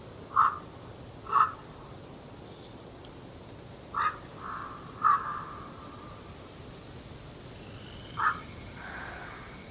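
A bird calling in a forest: short loud calls that come in pairs about a second apart, three times over, with a faint high note from a smaller bird between them, over a steady soft background hiss.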